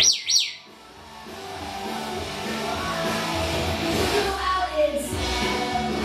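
African grey parrot giving two quick, sharp rising whistled chirps at the start, over steady background music.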